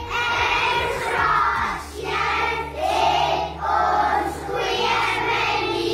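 A class of young children singing together in unison, in about five short phrases with brief breaks between them, over background music.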